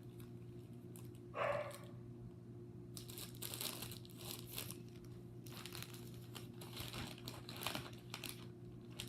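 Packaging crinkling and rustling in clusters as it is handled, over a steady low hum, with a short vocal sound about a second and a half in.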